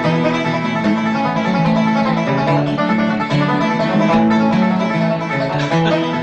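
Bluegrass music led by a plucked banjo, with guitar, playing continuously.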